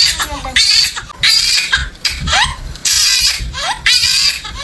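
A person's voice in a string of breathy, high-pitched cries, about six outbursts, some ending in a short rising squeal.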